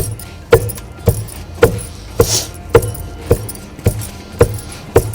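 Pestle pounding soaked pearl millet in a metal mortar (imamdasta): steady, even strikes nearly two a second, each a sharp clink with a short ring.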